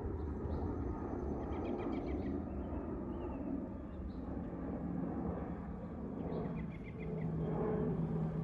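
An aircraft passing overhead out of sight above low cloud: a steady low rumble with a faint hum, while small birds chirp now and then.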